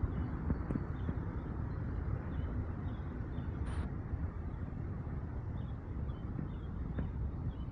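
Outdoor ambience: a steady low rushing noise with faint short high chirps now and then.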